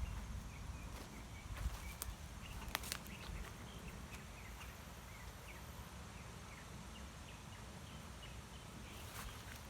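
Small birds chirping, many short chirps repeating, over a low rumble, with a few sharp clicks about two and three seconds in.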